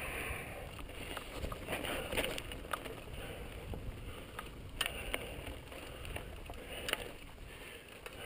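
Mountain bike rolling over a dry dirt and gravel singletrack: a steady rumble of the tyres on the trail, with a few sharp clicks and knocks from the bike over the ride.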